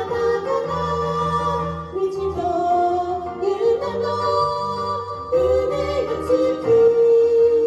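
Two women singing a duet into microphones over a karaoke backing track, holding long notes in the melody.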